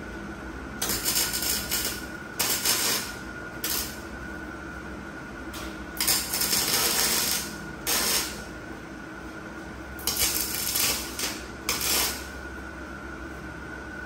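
Metalworking on a steel frame: about seven short bursts of harsh, hissing noise, each half a second to a second and a half long, over a steady faint tone and a low hum.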